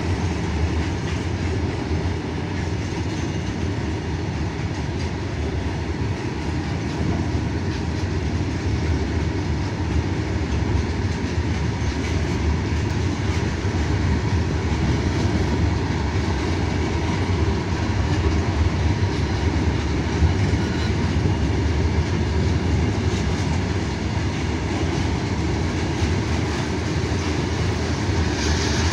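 Freight train wagons rolling past on the track: a steady noise of steel wheels on rails, heaviest in the low range, keeping up without a break.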